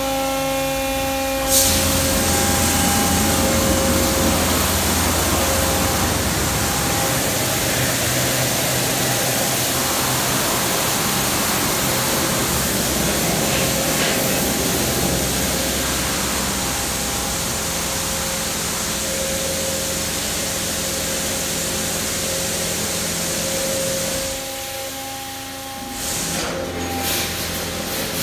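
Autec Evolution soft-cloth car wash machinery running: a steady hiss of spraying water over the hum of its motors and pumps, starting abruptly about a second and a half in. The noise dips briefly near the end, then picks up again with scattered knocks.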